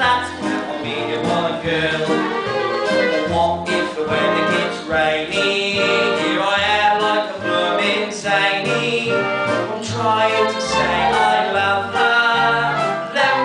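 Music: voices singing a show tune over instrumental accompaniment, with wavering sung notes above a moving bass line.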